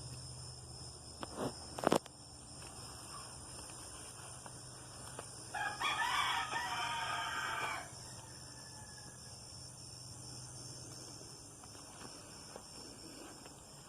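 A rooster crowing once, a call of about two seconds midway through. A steady high insect buzz runs underneath, and there are two faint clicks near the start.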